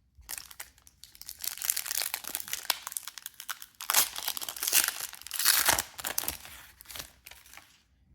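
A trading-card pack's foil wrapper being torn open and crinkled in the hands, a busy crackling with many sharp crinkles that stops near the end.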